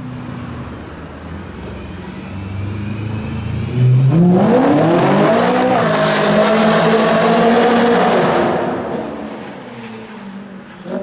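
BMW M3 E92's V8 on a Fabspeed exhaust with a cat-bypass X-pipe, at first running at lower revs. About four seconds in it goes suddenly loud under hard acceleration, with the revs climbing steeply. It holds high revs for a few seconds and then dies away.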